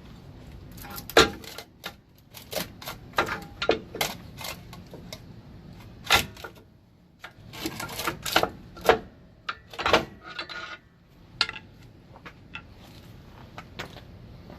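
Irregular metallic clanks and clicks of steel brake parts, the shoe, springs and rollers, being handled and fitted on a truck's air drum brake.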